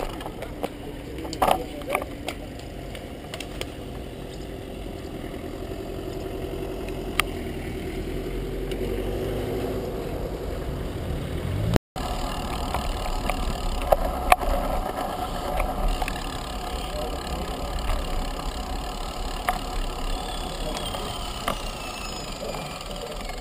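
Road bicycles being ridden, heard from a bike-mounted camera: steady wind and road noise with a few sharp clicks and knocks. The sound cuts out for a moment near the middle.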